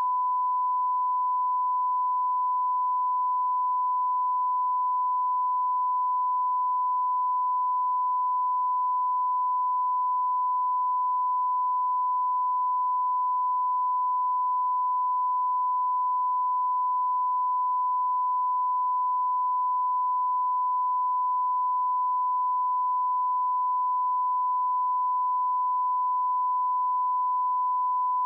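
Broadcast line-up test tone at 1 kHz: a single steady, unbroken beep at one pitch. It marks a TV station going off air for its technical break.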